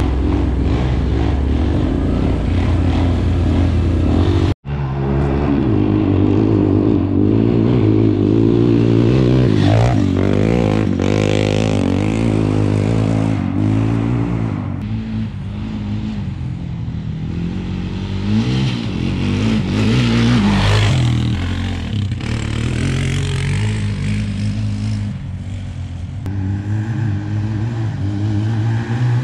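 ATV (quad bike) engines running and revving, rising and falling in pitch with the throttle. The sound is first heard from aboard a moving quad, then, after a sudden dropout about four and a half seconds in, quads rev past a fixed spot.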